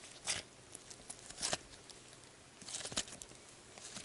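Hands squeezing and stretching soft Softy Melmito slime, giving faint crackly squishing noises in three short bursts, about a second or so apart.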